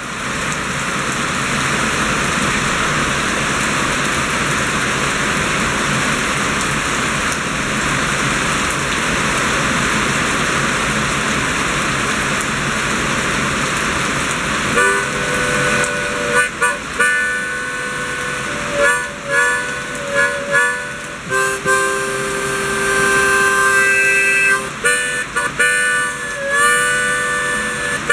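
Steady rain falling. About halfway through, someone starts playing along on a melody instrument: held notes, sometimes two at once, in short phrases with brief breaks, over the rain.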